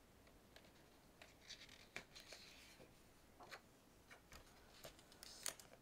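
Faint paper rustling and a few soft ticks as a picture book's page is turned by hand.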